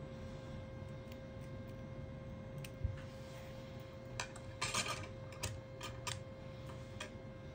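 Small, scattered clicks and taps of fingers and metal tweezers handling the opened Google Pixel 3, with a short scratchy rustle about four and a half seconds in, over a steady low hum.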